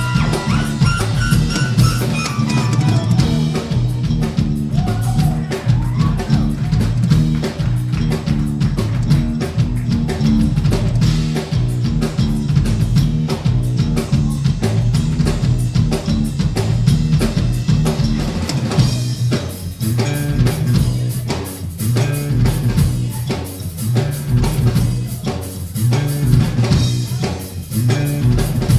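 Live instrumental bass guitar and drum kit playing a rock groove: a repeating bass line under a busy beat. About two-thirds of the way through, the cymbals come in louder.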